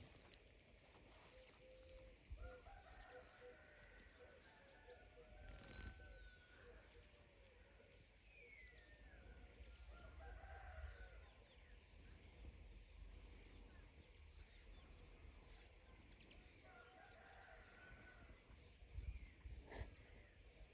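Faint outdoor ambience: a rooster crowing in the distance several times, with a few high bird chirps early on. Now and then a low rumble of wind on the microphone.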